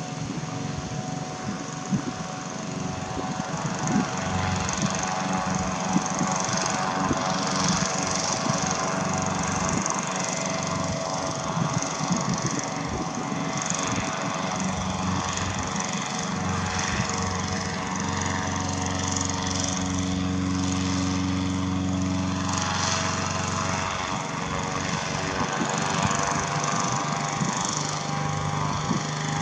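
A 4 HP air-prop engine and propeller pushing an inflatable boat, running steadily at an even pitch. A lower steady hum joins in for several seconds past the middle.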